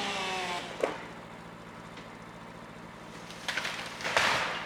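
Chainsaw running at revs that cuts off about half a second in, followed by a sharp crack. Then, from about three and a half seconds in, a loud crackling rush as the cut top of a tall alder falls through the branches.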